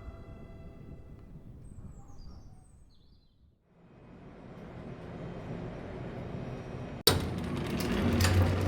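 Sustained music tones fading out, with a few short bird chirps, then a dip to near silence and a steadily rising hiss. About seven seconds in, a sudden sharp click gives way to louder noise with several knocks.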